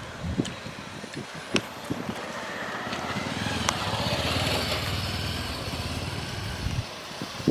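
A small engine running with a fast low throb: it builds up about two and a half seconds in and cuts off shortly before the end. A few sharp clicks come before it.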